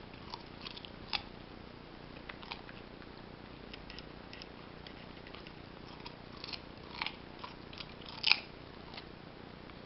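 A Belgian Shepherd mix puppy chewing a raw carrot: irregular crisp crunches and bites, the loudest near the end.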